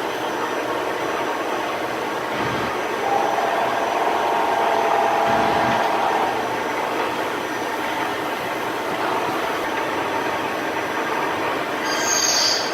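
Hardinge Conquest ST-20 CNC lathe running as it machines a steel dental osteotome: a steady hiss of machine and cutting noise, with a held whining tone from about three to six seconds in and a brief high-pitched sound near the end.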